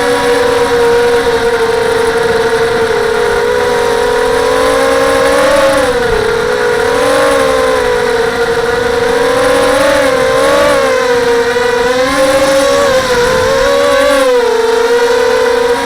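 Quadcopter's brushless motors (SunnySky 2204 2300KV spinning 5x3 props) whining steadily. The pitch bends up and down several times from about six seconds in as the throttle changes.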